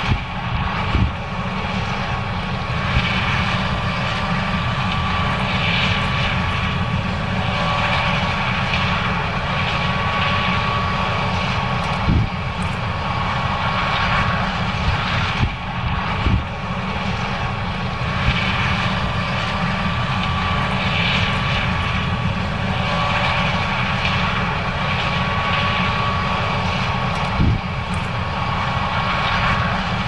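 John Deere S670 combine harvesting corn: its diesel engine and threshing machinery running steadily under load, with a steady high whine over a low rumble. A few brief thumps break through now and then.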